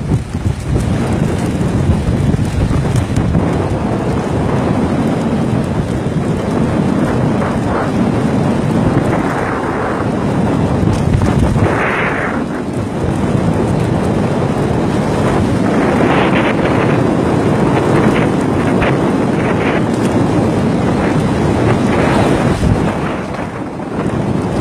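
Strong wind rumbling on the microphone over rough sea, with waves washing and splashing against the raft; a louder splash about halfway through and several more in the second half.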